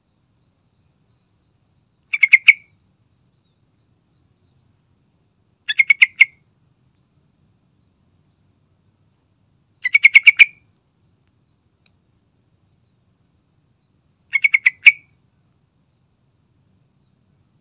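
Yellow-vented bulbul singing: four short phrases a few seconds apart, each a quick run of five or six notes that grow louder.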